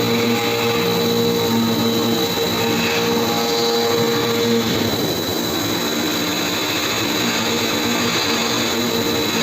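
CNC milling machine running: a steady mechanical whine with several held tones over a noisy hiss, the tones shifting in pitch about halfway through.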